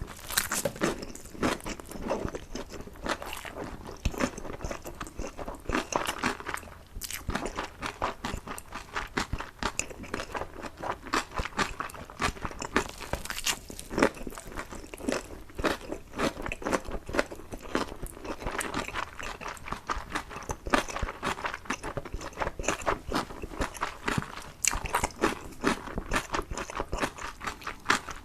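Close-miked eating: a person biting and chewing food, with a steady run of irregular wet, crunchy mouth clicks and smacks.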